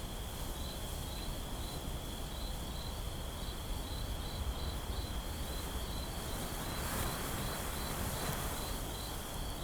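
Night ambience of crickets chirping: one steady high trill with a pulsed chirp about twice a second over it, above a soft background hiss.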